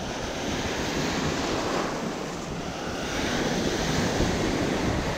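Ocean surf breaking and washing through the shallows around people standing knee-deep, with wind noise on the microphone; a little louder from about three seconds in as a wave breaks close by.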